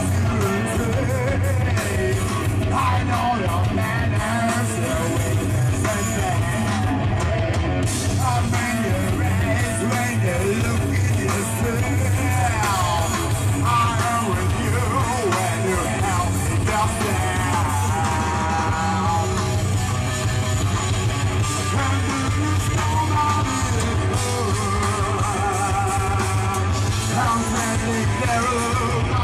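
Rock band playing a song: drums, electric guitar and a male vocalist singing into a microphone.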